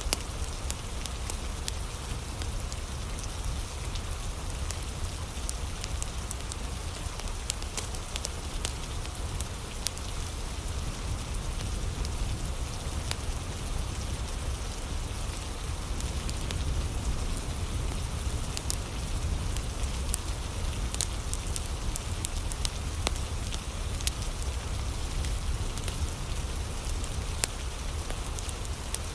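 Steady rain together with a crackling wood fire: an even hiss with a low rumble beneath it, and scattered sharp crackles throughout.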